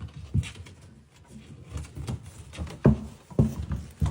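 A string of irregular knocks and thumps, the loudest about three seconds in, from the scuffle of handling a struggling squirrel.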